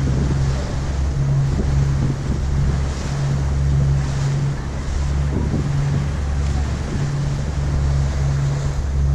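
Passenger ferry's engines running with a steady low drone, under the rush of water along the hull and wind gusting on the microphone.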